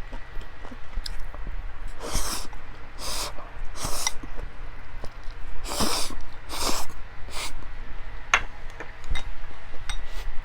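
Close-miked eating sounds: a person chewing, with small wet clicks and six short hissy bursts between about two and seven and a half seconds in.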